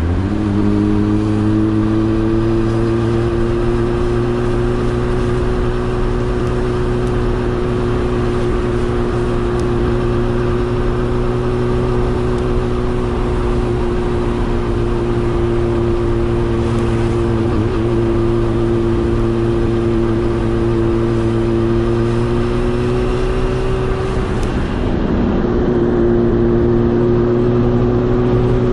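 A motor running steadily at a constant speed, a loud even hum that holds one pitch throughout, with slight wavers in pitch twice.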